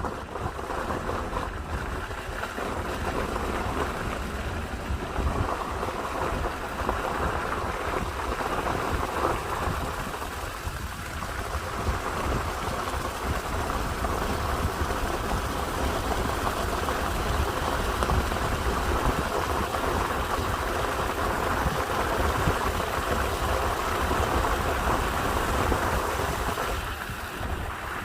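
Heavy rain falling steadily, with wind buffeting the microphone in a low rumble.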